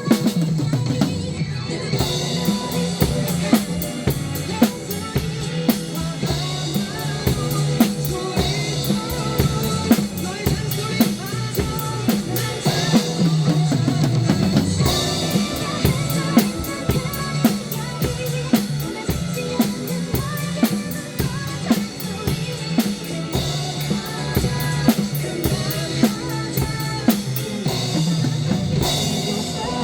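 Drum kit played in a steady, regular beat along with a recorded song.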